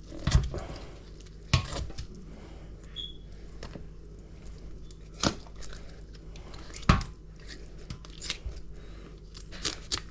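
Cleaning a leatherjacket fish by hand with scissors: scattered sharp clicks and knocks, four of them standing out, with soft tearing and crinkling handling noise between, over a faint low steady hum.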